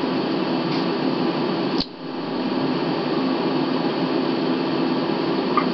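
Steady fan-like hum of room noise, with a single click just before two seconds in and a faint budgerigar chirp near the end.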